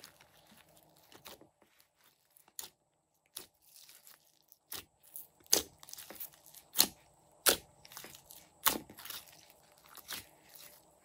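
Hands squishing and kneading glossy slime mixed with soft clay pieces, giving irregular sharp pops and clicks. The pops are sparse and faint at first and loudest in the second half.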